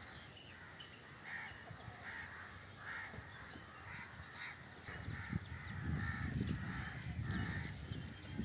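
A bird calling over and over in short harsh calls, about one to two a second, with a low rumbling noise coming in about halfway through.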